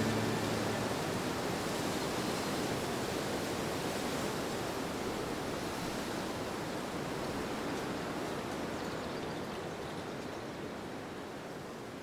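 Steady rushing outdoor ambience with no distinct events, slowly fading out.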